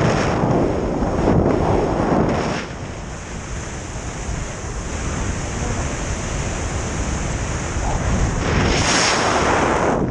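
Wind buffeting the camera microphone, a steady rushing that swells and eases: louder over the first two seconds or so, dropping, then rising again near the end. The wind comes from a tandem paraglider flight.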